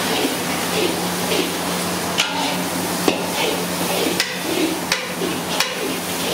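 Long metal ladles scraping and stirring in a wok of mutton frying in masala, with a steady sizzle, and several sharp metal clanks of a ladle knocking against the pots from about two seconds in.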